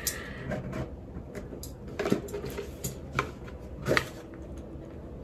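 Cardboard gift box being handled and opened: soft rustling and scraping of card and paper, with a few light knocks about two, three and four seconds in.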